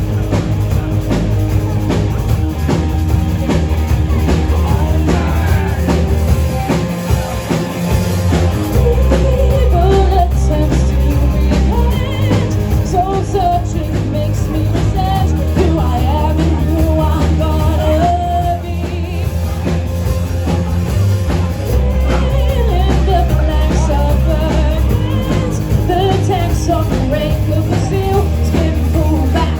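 Live rock band playing: electric bass, drum kit and guitar, with a singer's voice over the top, recorded in the room at a lounge bar.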